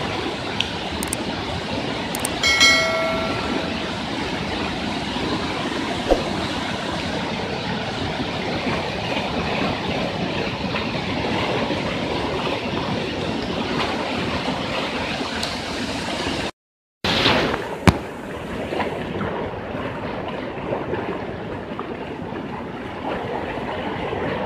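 Floodwater rushing through a street: a steady, heavy rush of water. It cuts out briefly about two-thirds of the way through, then carries on.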